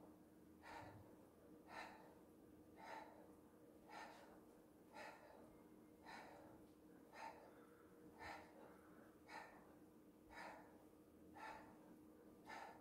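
A person breathing in short, sharp breaths in an even rhythm, about one a second; faint.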